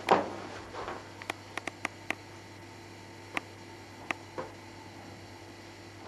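Quiet room tone with a steady low hum and hiss. A sharp knock comes right at the start, then a scattering of small clicks and ticks over the next few seconds.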